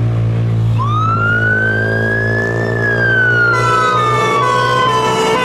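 Scania P280 fire engine pulling out with its diesel engine running and an electronic wail siren sounding, rising slowly from about a second in and then falling. About two-thirds of the way through, two-tone horns join, alternating between two pitches over the wail: a dual-siren turnout.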